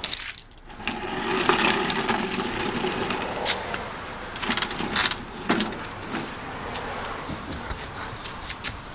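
Walk-behind lawn mower being shifted on concrete: its plastic wheels roll and its handle and deck rattle, with a few sharp clicks and knocks in the middle.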